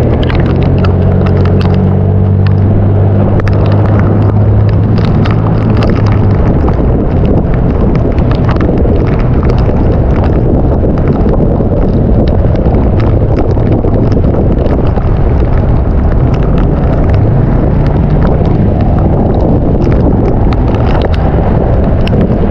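Storm noise: strong wind buffeting the microphone, with rain spattering in many small ticks, loud and steady. A vehicle engine hums under it for the first six seconds or so.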